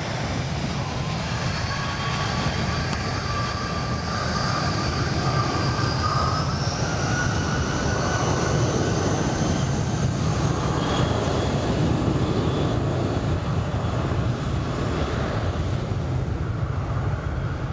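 Jet engines of a Delta MD-90 running on the runway: a steady low rumble with a high whine that rises in pitch about six seconds in, as the engines spool up towards take-off.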